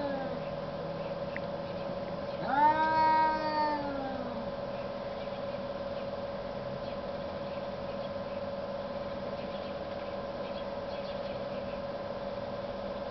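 One of two cats in a standoff lets out a single long, drawn-out threat yowl about two and a half seconds in, rising and then falling in pitch and lasting about a second and a half. A steady hum runs underneath throughout.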